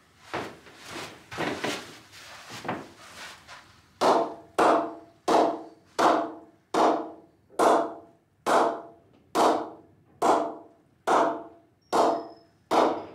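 Full-sapwood willow cricket bat having a leather cricket ball bounced on its face, a knock test of the bat's performance. After a few seconds of softer handling knocks, a steady run of sharp knocks comes about once every 0.8 s, each ringing briefly.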